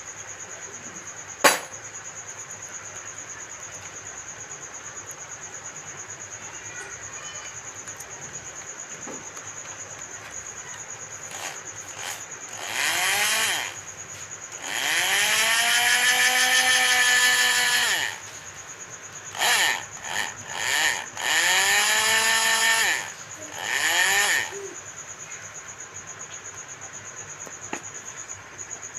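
Electric drill run in six bursts, its motor whining up to speed at each trigger pull and winding down on release; the longest run lasts about three seconds. A sharp click sounds about a second and a half in, and crickets chirp steadily throughout.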